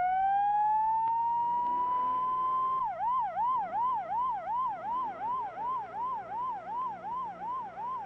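A vehicle siren rising to a steady high wail, then about three seconds in switching to fast, repeated up-and-down sweeps, about two and a half a second.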